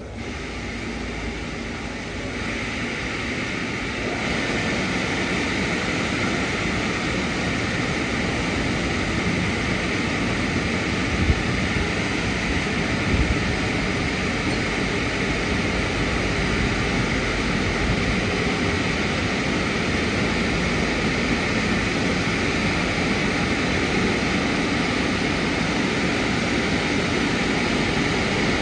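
Drying blowers of a 2005 Istobal M12+ rollover car wash, blowing through its fixed roof drying nozzle. They start up and swell in steps over the first few seconds, then keep up a steady, loud rush of air, with two brief knocks about eleven and thirteen seconds in.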